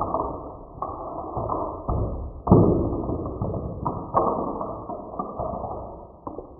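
Hot Wheels die-cast cars running on the plastic stunt-kit track: a series of sudden knocks, each followed by a rolling clatter that dies away, about seven times.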